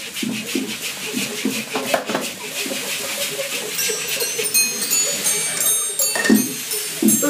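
A group of homemade junk instruments played together: rhythmic low pulses under squealing, bleating tones from balloons stretched at the neck. From about four seconds in, high metallic ringing and tinkling is added, from metal cutlery and tins being struck.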